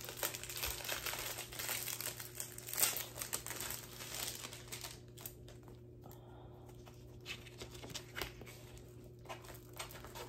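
Packaging of a diamond painting kit crinkling as it is opened by hand: dense crinkling through the first half, then a quieter stretch with a few scattered crinkles.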